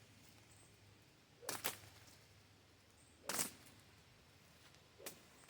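Three faint, brief swishes about two seconds apart, the first one doubled and the last one weaker.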